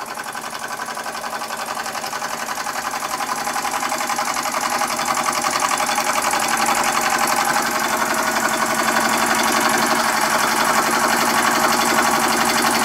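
Empire B-43 model steam engine running under steam, a rapid, even chuffing beat from its single cylinder with the flywheel spinning; it grows steadily louder. It is running smoothly.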